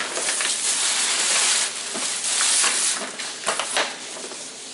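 Tissue paper rustling and crinkling as it is pulled about in a paper gift bag. It is loudest for the first three seconds, then dies down to a few scattered crackles.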